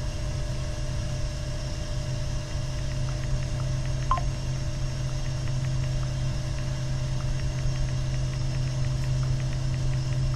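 Steady mechanical hum of a running commercial copper-coil water heater installation, with a few faint light ticks, one about four seconds in.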